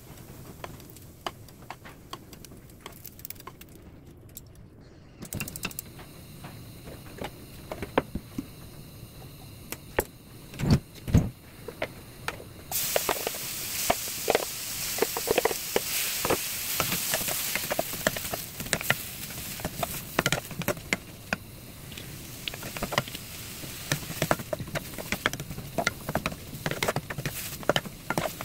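Chopped kimchi sizzling in perilla oil in a frying pan, starting about halfway through, with a wooden spatula scraping and tapping against the pan as it is stir-fried. Before that, light kitchen clatter and a couple of heavy knocks.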